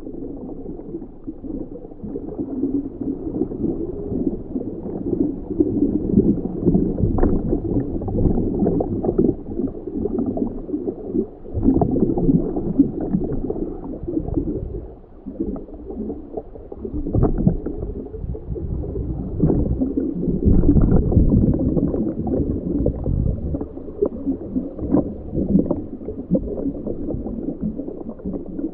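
Muffled, uneven underwater rumbling and gurgling of moving water, swelling and dipping, with a few faint clicks.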